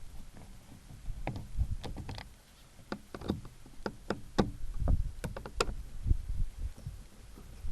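Irregular clicks, taps and low knocks of hands and tools working on a car door, with a cluster of sharper clicks in the middle.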